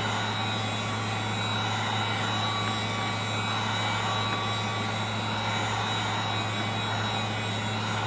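Heat gun blowing hot air steadily, with a low motor hum and a faint high whine, warming the phone's edges to soften the adhesive under the glass.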